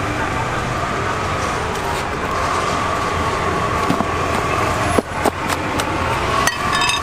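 Steady rumble and hiss of traffic and market noise. A few sharp clicks and cracks come about five seconds in and again near the end, as a long knife splits open the rind of a large jackfruit.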